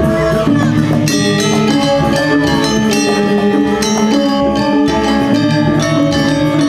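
Balinese gamelan gong kebyar playing: bronze metallophones ringing in quick runs of notes over kendang drums, with strong accented strikes about a second in and again around four seconds.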